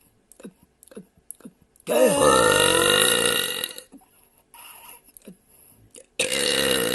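A woman burping loudly: one long belch of about two seconds with a wavering pitch, then a second belch starting near the end.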